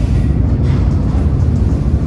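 Steady, loud low rumble of heavy factory machinery running continuously, without strokes or changes.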